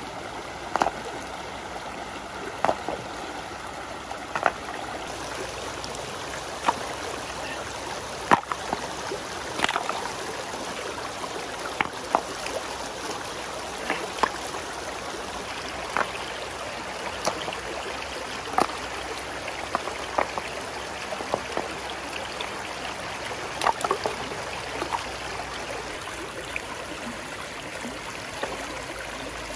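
Shallow stream running over rocks, with sharp knocks and splashes every second or two as stones are lifted and set down in the water.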